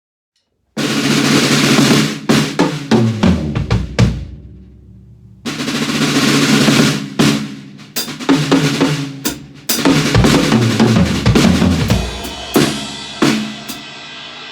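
Acoustic drum kit played in a soundcheck for recording: kick and snare grooves with fills under cymbal crashes, recorded on a phone. It starts about a second in, and new phrases open with a loud crash twice more, around the middle.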